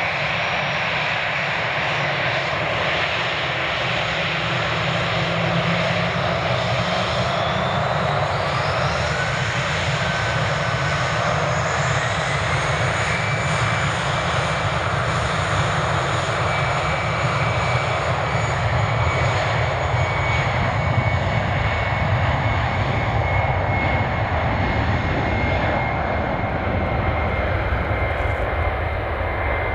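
Airbus A319-112's CFM56-5B turbofan engines spooling up to takeoff thrust. The whine rises in pitch about eight to thirteen seconds in, then holds as a steady high whine over the loud jet noise as the airliner starts its takeoff roll.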